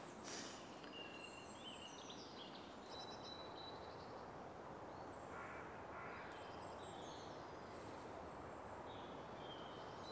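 Quiet woodland ambience: small songbirds chirping and trilling, high and thin, throughout, with two short harsh corvid calls about halfway through.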